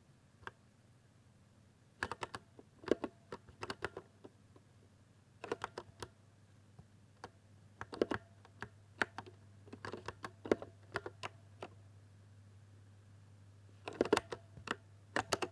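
Typing on a 60% keyboard, with keys pressed in quick runs of clicks and short pauses between the runs. Its sound is meant to be smooth.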